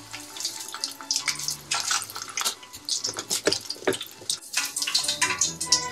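Battered squid deep-frying in hot oil, the oil sizzling with many irregular crackles and pops.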